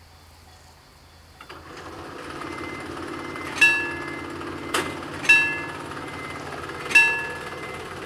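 Level-crossing warning bell striking slowly, one ringing stroke about every 1.7 seconds, three strokes beginning about three and a half seconds in, as the crossing starts its warning for an approaching train. Under it a low steady hum sets in about a second and a half in, and a single sharp click falls between the first and second strokes.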